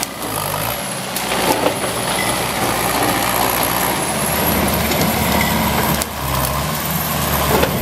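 Takeuchi compact track loader's diesel engine running steadily under load as the machine pushes against a tree with its raised bucket; the engine grows louder about halfway through.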